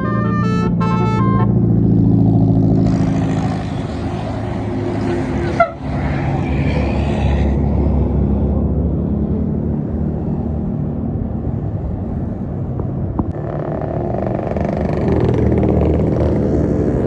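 A tour bus's multi-tone musical 'basuri' telolet horn finishes a short melody about a second in, then large buses drive past with a heavy engine rumble and stretches of rushing tyre and air noise.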